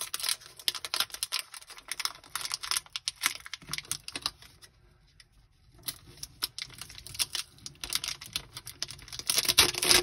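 Foil Pokémon booster pack wrapper being crinkled and torn open by hand: a rapid crackle that thins to a quieter pause around the middle, then grows to its loudest near the end as the pack comes apart.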